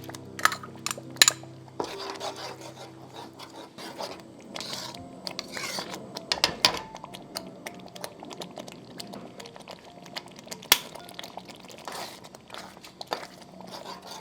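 Kitchen utensils clinking and scraping against cookware, with several sharp clinks, the loudest about ten seconds in.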